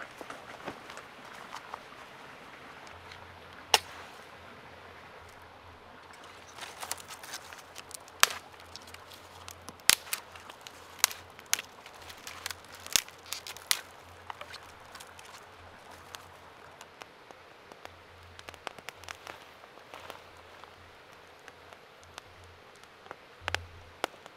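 Newly lit campfire of dry conifer twigs and split kindling crackling, with sharp pops scattered through it. The pops are thickest a few seconds in.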